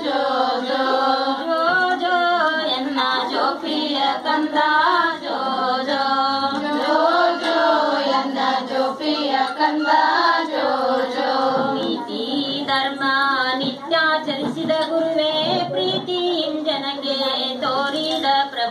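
Women singing a Kannada jogula, a cradle lullaby sung to the infant Krishna with a 'jo jo' refrain, in a swaying, melismatic line that carries on without a break.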